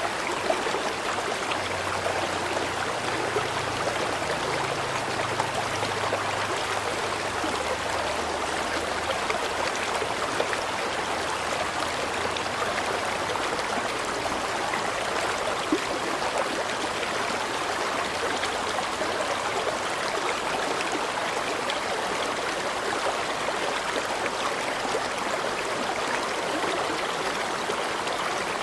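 River water flowing in a steady, even rush with small babbling crackles.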